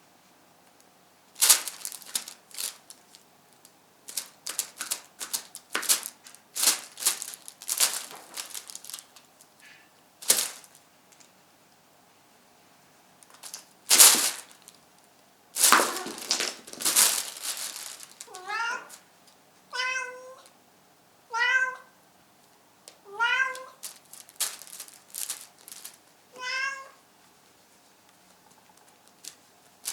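A plastic sheet crinkling and crackling in irregular bursts as a kitten plays on it, the loudest about halfway through. Then the kitten meows five times, short calls one to two seconds apart.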